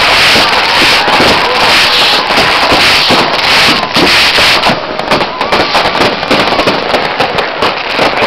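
Fireworks and firecrackers going off at close range: a loud, dense, continuous crackle of bangs and pops.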